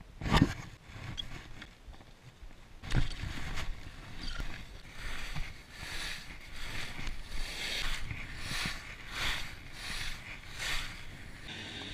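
Skis carving across packed, groomed snow: a run of scraping hisses, one swell per turn, coming about every two-thirds of a second. Two heavy knocks come first, one right at the start and one about three seconds in, and near the end the sound gives way to a steadier hiss.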